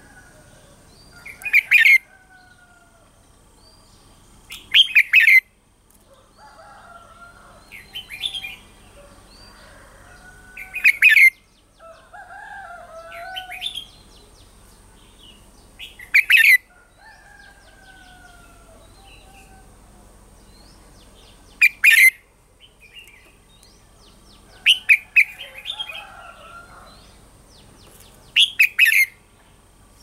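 Red-whiskered bulbul singing: about eight short, loud whistled phrases a few seconds apart, with fainter bird calls between them.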